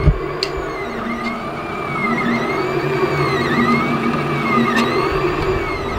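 Monoprice 3D printer running a print: the stepper motors whine in repeated rising and falling sweeps as the print head moves, over a steady hum of fans and motors. A low thump comes right at the start.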